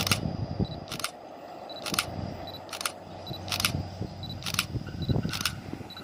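Sharp clicks repeating about once a second, coming a little faster towards the end, over a low uneven rumble of wind. Under them, a faint steady hum of a diesel multiple unit approaching in the distance.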